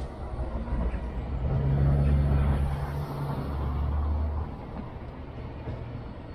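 Two freight trains of cement hopper wagons and loaded aggregate wagons passing, with a steady low rumble. A deep hum swells about a second and a half in and stops about four and a half seconds in.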